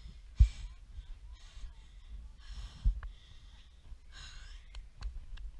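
Heavy breathing, about four breaths roughly a second apart, over a low rumble of wind on the microphone, with a sharp low thump about half a second in.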